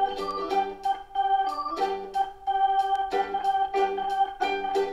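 Background music: a keyboard tune in an organ-like tone, held notes over a steady beat.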